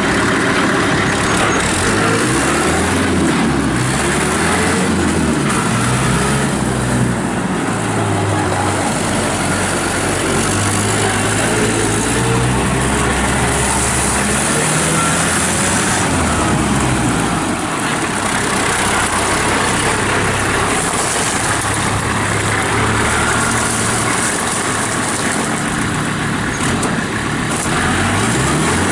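Kubota M5400 tractor's five-cylinder diesel engine running, its speed rising and falling several times.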